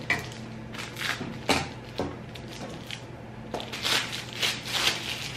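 Scattered small clicks, taps and rustles of light-fixture parts being handled, as candle sleeves are fitted over the sockets of a metal pendant light, over a low steady hum. The taps come singly at first and bunch together near the end.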